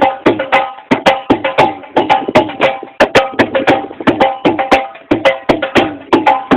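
Background music with a fast, even beat of sharp percussive knocks, about three a second, and short pitched notes between them.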